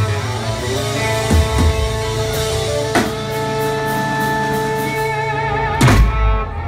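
Live rock band holding a long ringing chord on electric guitars over a bass drone, with a few scattered drum hits. The song closes about six seconds in on one loud drum-and-cymbal hit that rings out.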